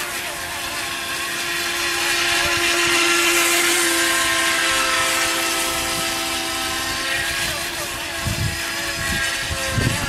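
FT007 RC speedboat's electric motor whining steadily at speed, with a hiss of spray, growing louder a few seconds in. A few low bumps come near the end.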